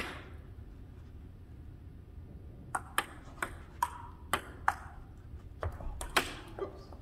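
Table tennis ball clicking off paddles and the tabletop in a rally: one sharp, loud hit right at the start, then after a pause about nine quick clicks at two to three a second, the loudest one near the end.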